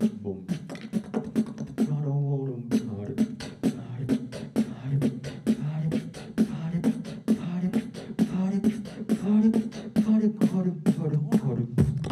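Solo human beatbox into a handheld microphone: a fast stream of sharp clicks and snare-like hits over a hummed, wavering bass line. Several sounds come at once, made separately with the mouth, nose and throat.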